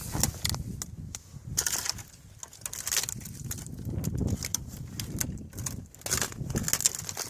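Footsteps crunching and rustling through dry grass and brush, with irregular snaps and low rumbling.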